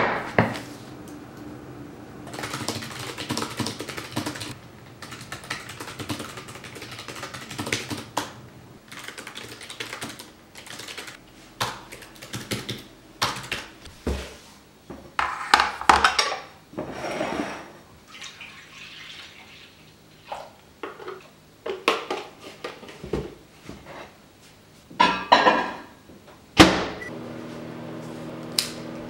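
Close-miked handling sounds, first at a desk and then in a kitchen. It opens with a sharp tap, then a quick run of small clicks and taps, followed by spaced knocks and clatters of dishes and a bowl being handled on a stone countertop. A sharp knock comes near the end, then a steady low hum.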